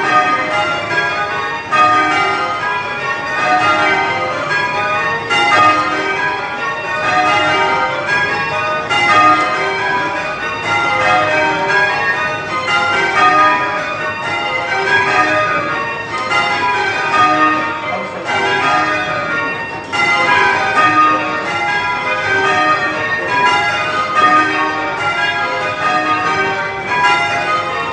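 A ring of tower bells being change rung: a continuous, even stream of bell strikes, each bell sounding in turn with the order changing from row to row.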